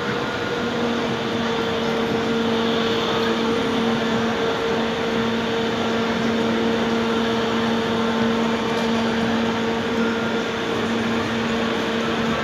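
Steady mechanical hum over an even rushing noise.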